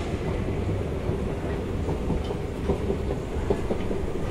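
Steady low mechanical rumble of metro station machinery, with scattered light clicks over it.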